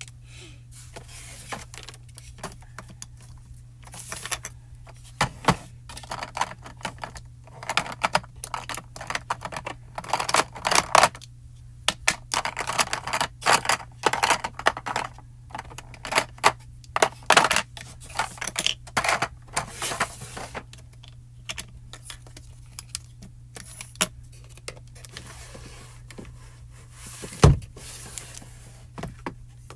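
Hard plastic ink pad cases and stamping supplies being handled and set down on a craft desk: a run of light clicks, taps and rattles, busiest in the middle, with one heavier thump near the end.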